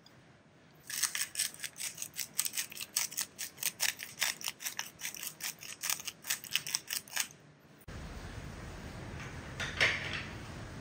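Hand-twisted salt grinder grinding salt in a quick run of clicks, about five a second, for some six seconds. It then gives way abruptly to a steady hiss with a single knock near the end.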